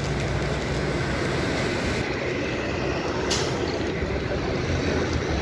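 Steady road traffic noise: the engines and tyres of passing vehicles, with a low rumble. A short click a little past three seconds in.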